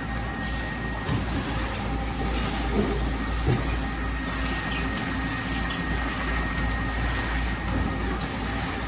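Servo-driven sachet counting machine on a wet cat-food pouch packaging line running steadily: a constant machine hum with a faint steady whine and a few light knocks from pouches being handled.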